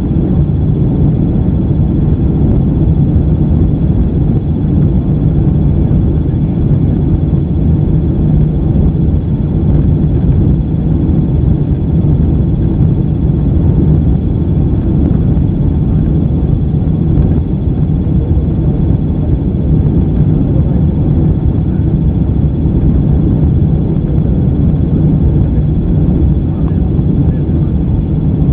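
Steady roar of a Boeing 767-300's engines and rushing air heard inside the passenger cabin on approach, with a steady low hum running through it.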